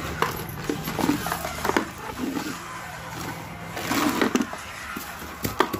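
Clear plastic wrapping crinkling and rustling as a hard plastic lunch box is handled, with scattered clicks and knocks and one sharp knock near the end.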